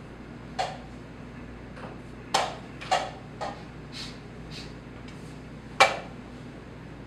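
Wooden chess pieces being set down on a wooden board and a chess clock being pressed during a blitz game: about eight sharp, irregular clicks and knocks, the loudest near the end.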